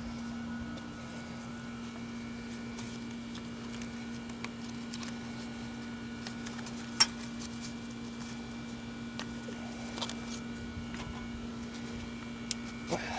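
A steady hum with a sharp click about halfway through and a fainter one a few seconds later, as of a hand tool on the engine's carburetor and manifold fittings.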